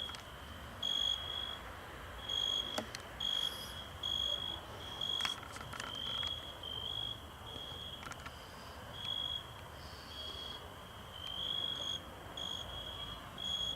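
Crickets chirping in short high notes about once a second, several of them overlapping at uneven intervals.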